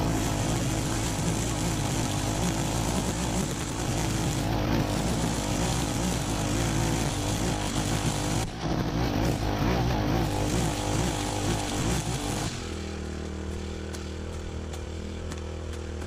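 Honda UMK425 four-stroke brushcutter running at high speed, its nylon line head cutting through thick long grass and weeds. About three-quarters of the way through, the sound settles to a quieter, steadier engine hum with a clear pitch.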